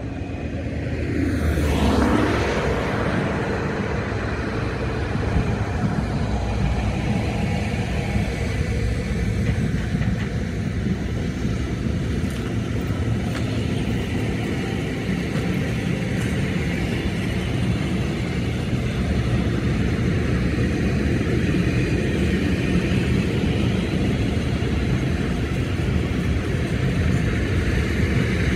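Long container freight train rolling past close by behind an electric locomotive: a steady rumble of wagon wheels on the rails. About two seconds in, a vehicle passes close with a falling pitch.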